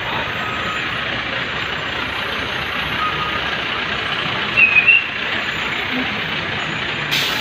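Steady noise of jammed highway traffic with truck engines running. A short high-pitched beep comes about five seconds in, and a brief burst of hiss near the end.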